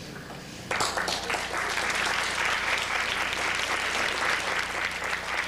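Audience applauding, the clapping breaking out suddenly under a second in and carrying on steadily.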